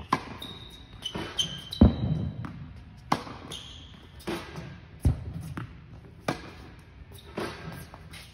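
A tennis ball being struck by a racket and bouncing on an indoor hard court: sharp knocks about once a second, each ringing on briefly in the hall. A few short high squeaks in the first two seconds.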